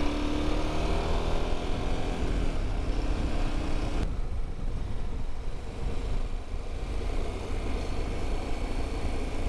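KTM 1290 Super Adventure S's V-twin engine running under way, its pitch rising a little in the first seconds as it accelerates, with heavy wind rumble on the handlebar-mounted camera's microphone. About four seconds in the sound changes abruptly, and the engine becomes fainter under the wind.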